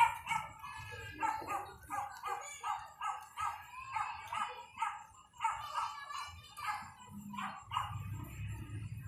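A dog barking in a quick run of short, high yaps, about two or three a second, stopping about seven seconds in.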